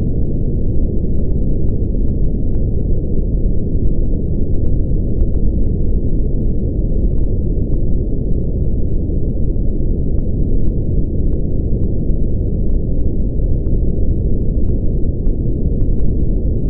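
Brown noise, also called red noise: a steady, deep rumble of random noise, strongest in the lows and fading out above the midrange, unchanging throughout.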